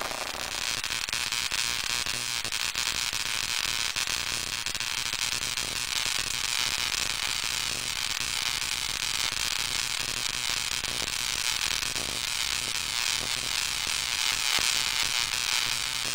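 Pancake (Kinraide-type) Tesla coil discharging a continuous spark between two ball electrodes: a steady, high-pitched buzzing crackle over a low hum.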